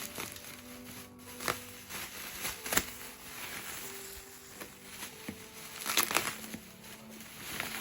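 Rustling and handling of a handbag and its packaging: a few short, sharp crinkles and taps, about one and a half seconds in, near three seconds, and a cluster around six seconds.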